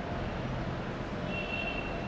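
Steady outdoor rumble of vehicle traffic, with a brief high-pitched tone about a second and a half in.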